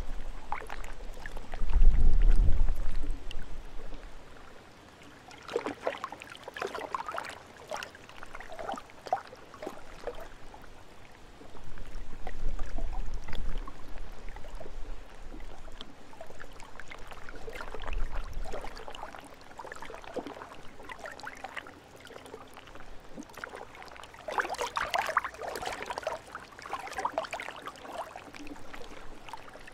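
Small lake waves lapping and splashing at the shore in irregular bursts. Gusts of wind rumble on the microphone now and then, the strongest about two seconds in.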